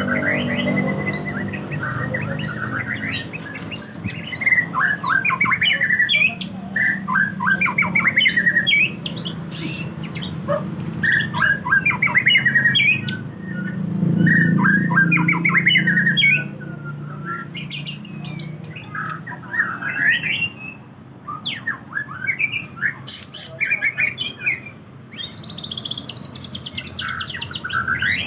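White-rumped shama (murai batu) song: a long run of rapid, varied whistled phrases and chattering notes with short pauses between bursts. A steady low rumble runs underneath.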